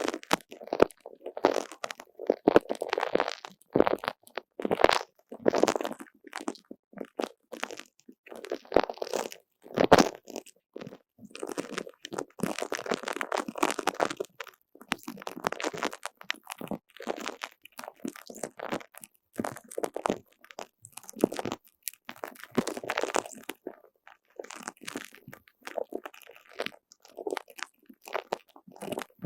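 Sticky, gooey squelching and crackling as a tacky squishy toy is squeezed and pulled apart by hand, peeling off the fingers with sharp little clicks. It comes in irregular runs with short pauses.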